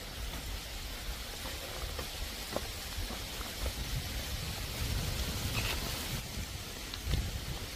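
Heavy rain falling on a concrete path and grass: a steady hiss with scattered ticks of individual drops.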